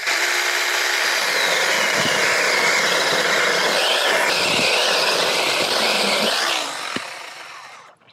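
Battery-powered mini chainsaw with a brushed motor cutting through a tree branch, the motor's whine wavering and dipping as the chain bites into the wood. It winds down and stops near the end as the cut finishes.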